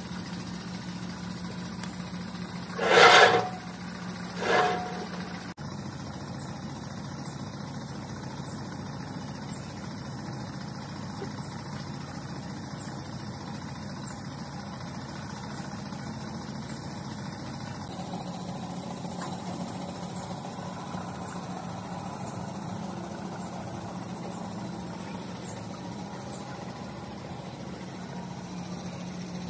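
A steady low machine hum, broken by two short, loud bursts of noise about three and four and a half seconds in.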